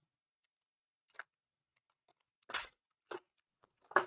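Foil booster pack for a trading card game being handled and torn open: a few short crinkling crackles, the loudest near the end as the wrapper rips.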